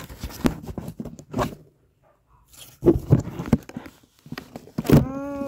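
A cardboard toy box and its plastic packaging being handled and pulled at, making short bursts of rustling, scraping and tearing with clicks, while a tightly packed figure is worked out of the box. A brief vocal 'ai'-like sound of effort comes near the end.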